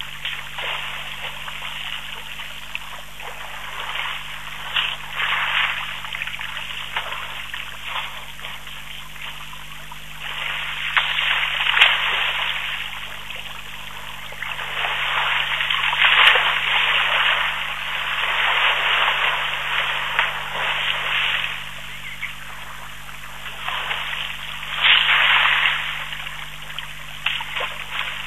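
African elephants sloshing and splashing water at a waterhole, in uneven swells that last from one to a few seconds, with one sharper splash near the end.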